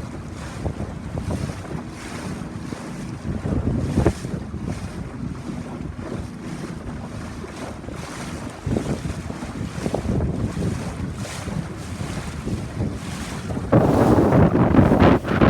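Wind buffeting the microphone on a moving boat, with water rushing and splashing against the hull. It gets louder near the end.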